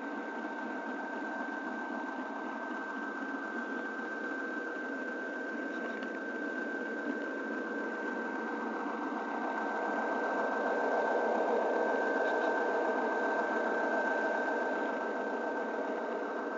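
Model railroad train running along the track, heard from a camera riding on it: a steady whirring of small wheels on the rails and the locomotive's motor, with a thin high whine running through it. It grows louder for a few seconds past the middle, then eases back.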